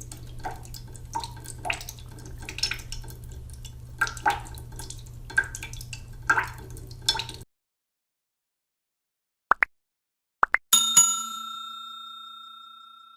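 Waterfall water trickling and dripping in irregular splashy drops over a steady low hum, cutting off abruptly about seven seconds in. After a pause come two pairs of short rising blips, then a bell-like chime that rings and slowly fades.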